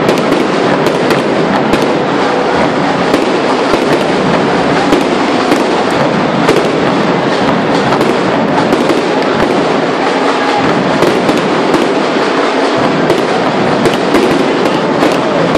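Fireworks display going off non-stop: a loud, dense crackle packed with many sharp pops and bangs from bursting aerial shells.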